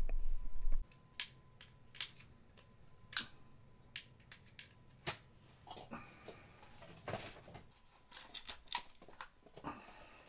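Irregular light clicks and clinks of a 5 mm hex key working the bolts and metal parts being handled while the battery-holder and controller unit is taken off a mobility scooter's frame. A brief low rumble at the start.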